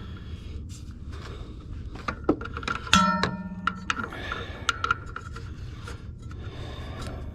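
Wrench work on an engine's belt pulley bolt as it is tightened: irregular metal clicks with scraping and rubbing.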